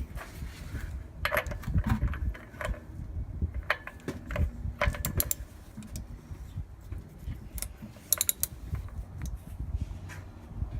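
Scattered sharp metal clinks and clicks of a 1 1/4 inch socket and wrench being handled and fitted for the drain plug, with a tight run of clicks about five seconds in and another about eight seconds in.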